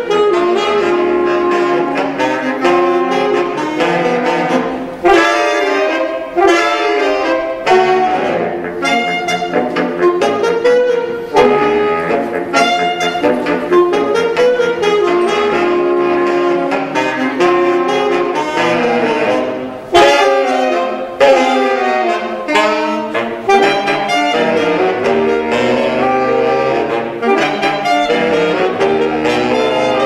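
Saxophone quartet playing a fast jazz piece, the four saxophones weaving quick, busy lines with a few sharp accented notes.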